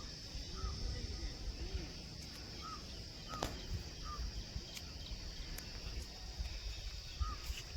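A steady high-pitched insect drone, with short bird chirps every second or so and one quick falling whistle about three and a half seconds in, over a low rumble.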